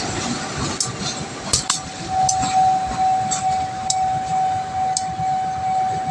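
Railway level-crossing warning alarm sounding one steady high tone that starts about two seconds in, over a constant background noise, with a few sharp clicks scattered through.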